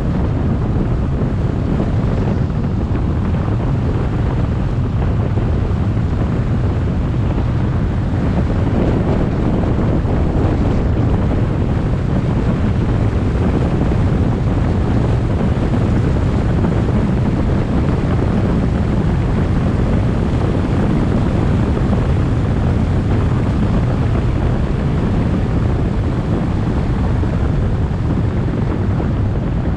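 Steady road and wind noise from a moving vehicle, with wind buffeting the microphone; a low rumble stays at the same level throughout.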